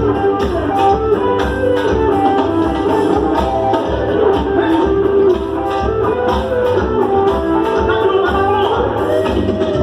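A band playing a song, with melodic lines over a steady percussion beat.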